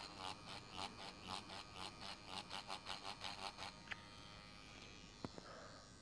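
Tattoo machine buzzing faintly during greywash shading, pulsing about four times a second as the needle is swept in short pendulum strokes; the pulsing stops about four seconds in, leaving a steadier hum with a couple of small clicks.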